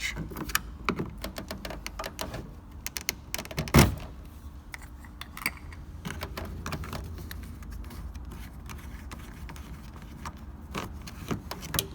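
Clicks and clatter of hard objects being handled, with many sharp clicks in the first few seconds and one loud knock about four seconds in, then fewer, softer clicks over a low hum.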